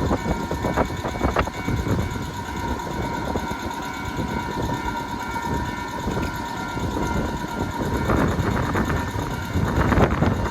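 A train running over a level crossing, a steady rumble with wheel clacks on the rail joints, getting louder near the end. The crossing's electronic warning bell keeps ringing over it.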